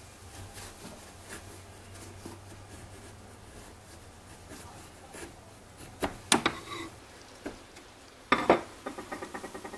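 A chisel paring thin shavings from a soft maple strip, with faint scraping. About six seconds in come two sharp wooden knocks, and near the end a louder clatter and a quick run of small clicks as small wooden pieces are set down on the workbench.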